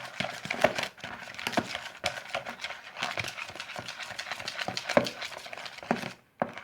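White school glue and shaving cream being stirred together in a bowl: a continuous run of irregular wet clicks and taps. The sound breaks off briefly just before the end.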